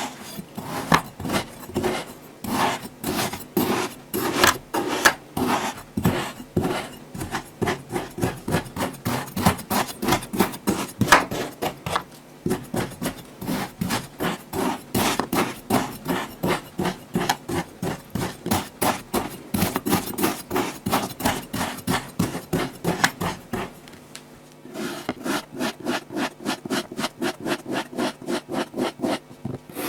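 Kinetic sand being cut or pressed with a tool, a fast run of short, crunchy, gritty strokes about two or three a second, with a brief pause near the end before they start again.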